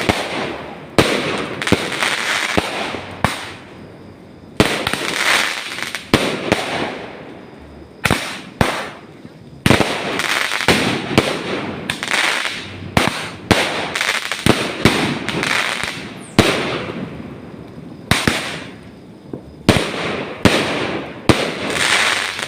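Fireworks going off in quick succession: a run of sharp bangs, each followed by a fading crackling hiss.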